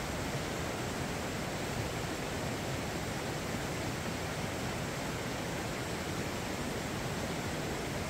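Steady rushing of a mountain valley stream, an even wash of water noise with no breaks.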